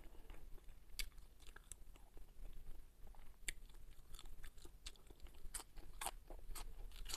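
A person biting and chewing a fresh green onion stalk: faint, irregular crisp crunches and mouth clicks.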